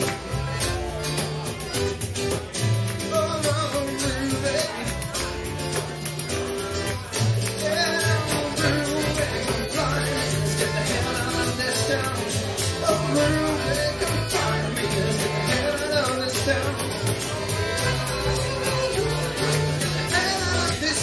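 Live acoustic band playing an instrumental passage: accordion carrying a wavering melody over steady bass notes from a large acoustic bass guitar, with a tambourine.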